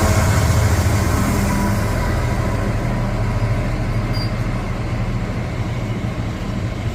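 Train running through the station: a steady low hum with a rushing noise, slowly fading away.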